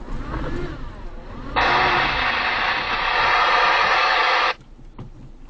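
A loud burst of static hiss starts suddenly about a second and a half in and cuts off abruptly about three seconds later. It is preceded by a few wavering tones.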